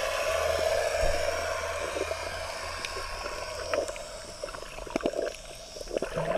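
Underwater ambience picked up by a camera just below the surface: a steady rushing hiss that slowly fades, then scattered clicks and short bubbling sloshes of water from a few seconds in, getting louder near the end.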